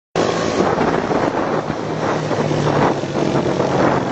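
Motorcycle engine running steadily, with wind rushing across the microphone.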